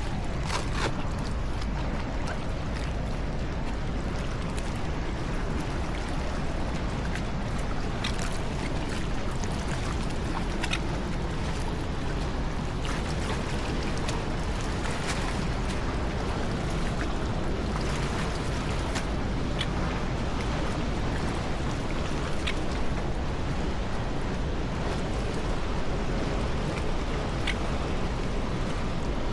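Steady rush of harbour water around a kayak, with scattered small splashes and drips.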